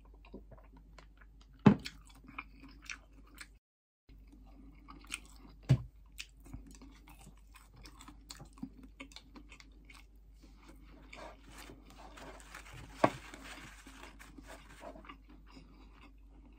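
Someone chewing crisp fried chicken (karaage) and rice, with small crunching clicks throughout. Three sharper knocks come about two, six and thirteen seconds in.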